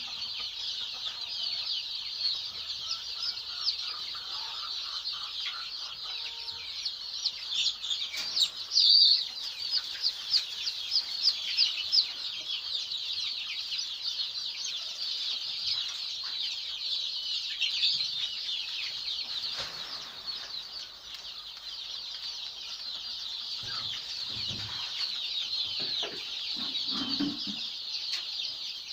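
A large flock of chicks peeping continuously, many high-pitched cheeps overlapping, with a spell of louder peeps about eight to twelve seconds in.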